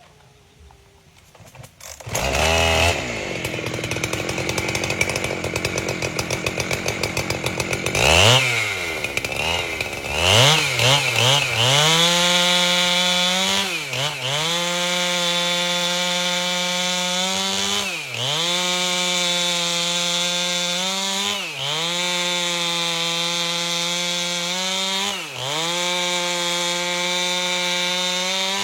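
Chainsaw with a 30-inch bar started about two seconds in, idling unevenly, revved a few times, then running at full throttle while ripping an albasia log lengthwise, its pitch dipping briefly every few seconds as the cut loads it.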